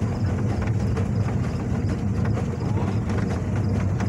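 Steady low engine rumble from a motorboat under way, with faint rattling ticks over it.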